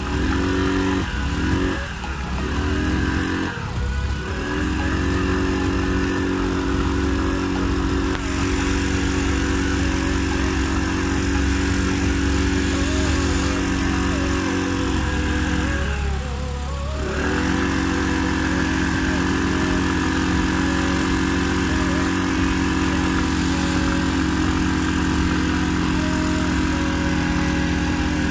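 Two single-cylinder four-stroke scooter engines, a Honda Activa 125 and a TVS Jupiter 110, held at high revs under heavy load as the scooters pull against each other on a rope. The revs waver in the first few seconds and dip briefly past the halfway point before picking up again.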